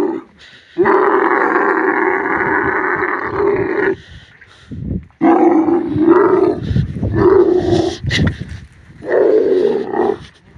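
Dromedary camels groaning during mating: three long, loud calls with short gaps between them, the first lasting about three seconds.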